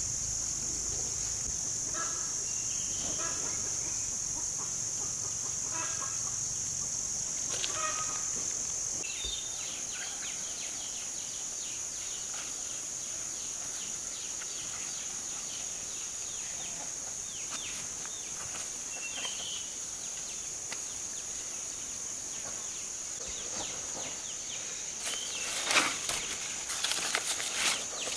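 Steady high-pitched chirring of insects, with a few short bird calls in the first several seconds. Near the end comes a burst of rustling and scraping as hands work the soil and a woven bamboo basket.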